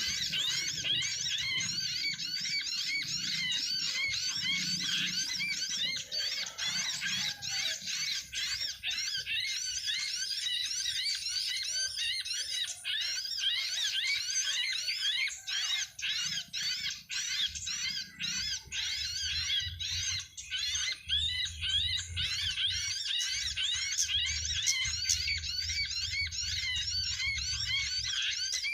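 Dense, continuous high-pitched chirping and twittering of small birds, many rapid repeated notes overlapping without a break.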